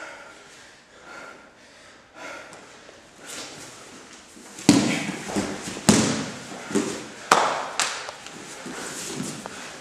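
Grapplers rolling on a padded mat. Heavy breathing comes about once a second, then about halfway through several sharp thuds and slaps of bodies and limbs hitting the mat in a scramble.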